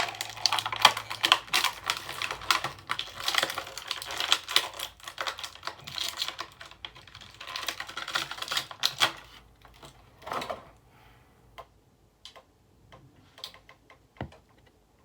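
Plastic and cardboard toy packaging crinkling and crackling as an action figure is taken out of its box. The dense crackle lasts about nine seconds, then thins to a few scattered clicks and taps.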